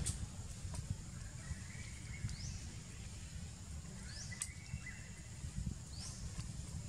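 Outdoor ambience: a low gusty rumble, like wind on the microphone, under a short rising high chirp that repeats about every two seconds, with a faint steady high-pitched whine behind it.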